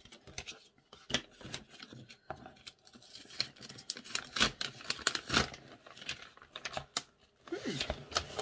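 Printed leaflets and tissue paper rustling and crinkling as they are handled, a run of short crisp rasps and scratches that is busiest and loudest in the middle.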